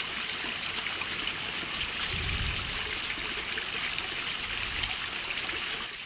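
Low-flow waterfall: a thin sheet of water trickling down a rock slab and splashing into a shallow pool, a steady hiss of running water.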